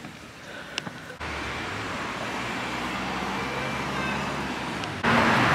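Steady road traffic noise: a low engine hum under a wash of passing-vehicle noise. It starts suddenly about a second in and steps up louder near the end.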